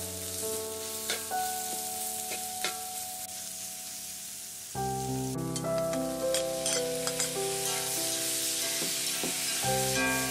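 Food sizzling as it is stir-fried in a steel wok, with a metal spatula scraping and clicking against the pan. Background music plays throughout.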